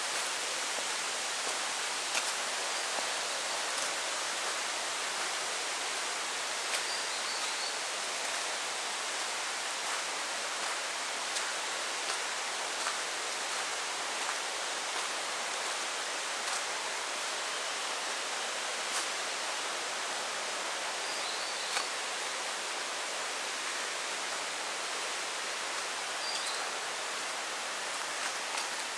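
Steady, even hiss of forest ambience, with faint clicks every few seconds and a few brief high chirps.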